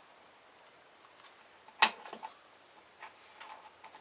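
A few small sharp clicks and light taps, with one louder click about two seconds in, from prying open a small plastic switch taken out of an alarm clock.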